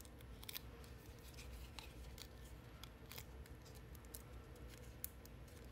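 Faint, scattered ticks and crinkles of thin cardstock being handled, as fingernails pick small die-cut pieces out of a paper panel.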